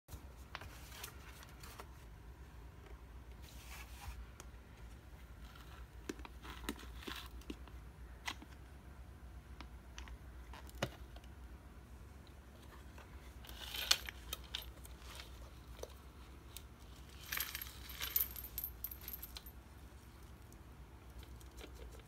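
Plastic clicks and coins clinking and rattling as the clear dust bin of a cordless vacuum, with pennies and debris in it, is handled and opened. There are two busier spells of rattling in the second half.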